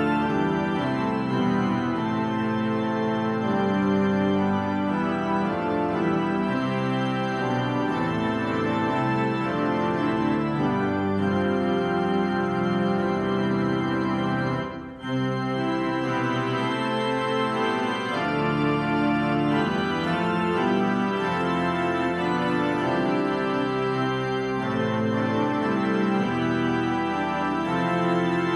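Organ playing slow, sustained chords, with a brief break about halfway through.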